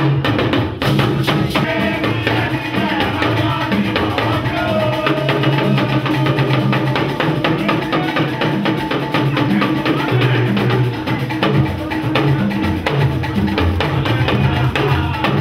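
Live hand drums played by a drum ensemble, beating a busy, steady dance rhythm with repeating low drum notes.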